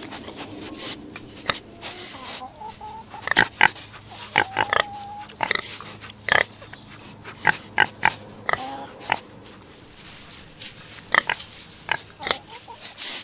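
Minipigs grunting in short, irregular clusters, with a brief held squeal about four and a half seconds in.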